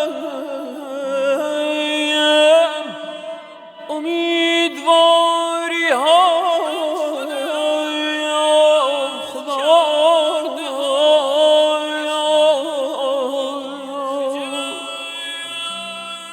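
Solo voice singing a Persian munajat (devotional supplication) in a wordless, melismatic chant: long held notes with vibrato and quick ornaments, a sweeping rise about six seconds in. Soft low sustained notes underneath change pitch now and then.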